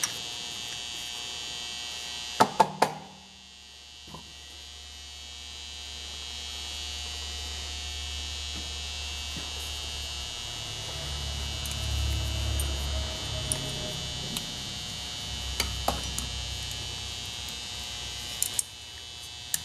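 Hands handling metal parts of an old Hutchens sander on a workbench: a few sharp clicks and knocks, a cluster of them about two and a half seconds in and single ones later, over a steady electrical hum.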